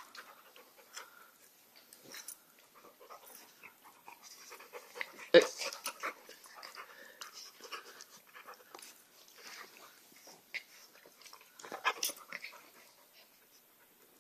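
A dog and a puppy play-fighting: scuffling, mouthing and panting, with a sharper, louder sound about five seconds in and again about twelve seconds in.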